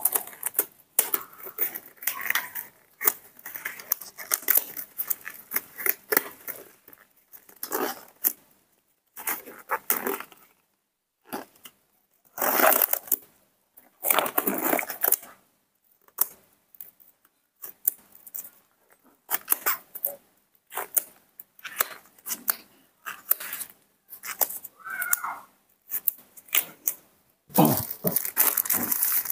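Irregular rustling, crinkling and snapping handling noises from disposable gloves being pulled onto the hands and the hands then working over cloth bedding, coming in short bursts with brief pauses.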